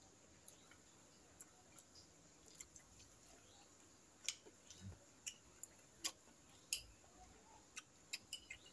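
Near silence broken by scattered soft clicks and smacks of someone eating with their fingers: chewing and lip noises, a few sharper clicks about four and six seconds in.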